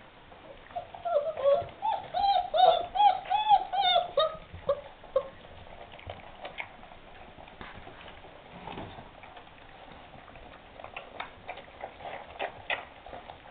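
Young Great Dane puppy whining: a run of short, high whimpers, each rising and falling, about three a second, for the first few seconds. Then the litter eating from a shared tray, a scatter of small smacking and clicking sounds.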